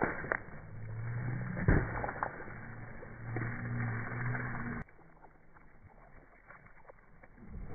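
Car tyre crushing and bursting liquid-filled pouches and water balloons: a few sharp pops and crunches over a low steady engine hum. The hum stops abruptly about five seconds in, leaving faint scattered clicks.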